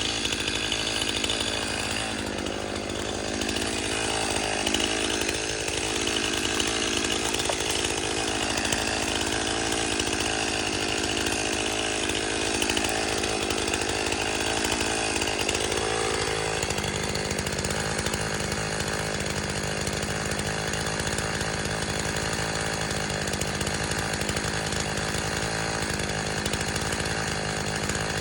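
Stihl MS-291 two-stroke gas chainsaw running continuously, its engine note changing a little past halfway.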